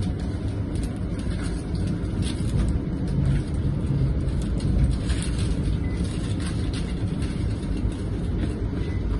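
Steady low rumble of a CAF Urbos 100 tram running along street track, heard from inside the passenger saloon.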